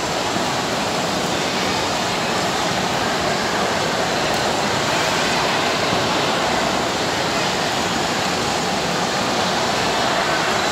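Steady roar of an indoor ice rink's background din, an even wash of noise with no distinct events standing out.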